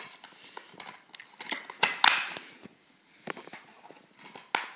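Plastic DVD case being handled: a series of clicks, rattles and rustles, with the loudest clack about two seconds in.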